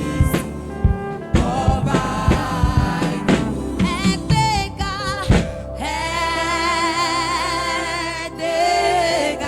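Gospel praise music: singing with a wavering vibrato over instrumental accompaniment, sharp beats through the first half, then a long held note from about six seconds in.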